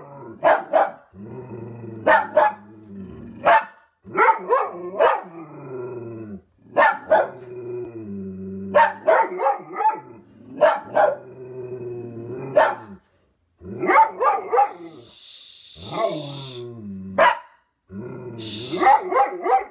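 A dog barking over and over, in quick runs of several barks, with longer, lower drawn-out sounds between some of the runs.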